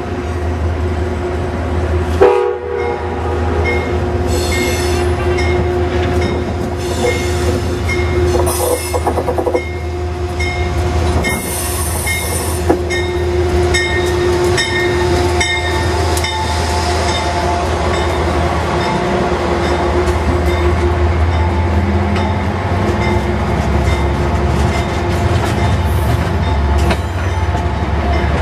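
Amtrak GE Genesis diesel locomotive sounding its horn as it runs into the station: several long blasts, the first starting suddenly about two seconds in, with a bell dinging steadily under them. In the second half the engine and the passenger cars' wheels rumble and clatter past close by.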